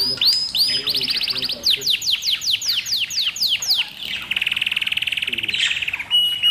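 Small birds chirping: a fast run of repeated downward-sweeping chirps, then a quick buzzy trill about four seconds in, and a short steady whistle near the end.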